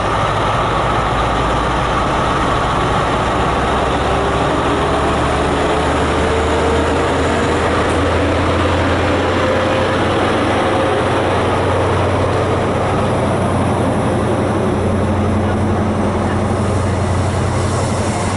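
Class 43 power car of an InterCity 125 HST, its MTU diesel engine running loud and steady under power as the train moves past along the platform. A thin whine rises slowly in pitch over several seconds over the engine drone.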